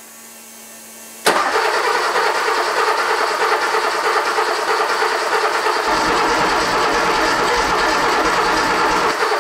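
Starter motor cranking the Porsche 911 3.2's air-cooled flat-six steadily for about eight seconds without it firing, which the owner puts down to no spark. A faint steady hum comes before the cranking begins, about a second in, and the cranking deepens about six seconds in.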